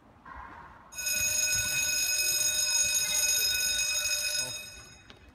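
An electric bell ringing steadily for about three and a half seconds, then fading out.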